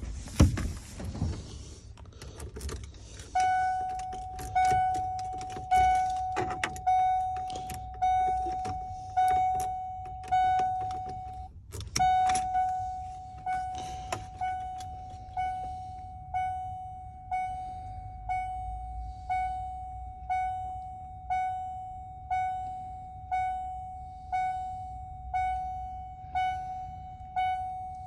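Ford pickup's dashboard warning chime ringing over and over, one pitched ding about every second with a fading tail, briefly breaking off about halfway and then starting again. Before it starts there is a thump and some clicking and rattling as someone gets into the cab.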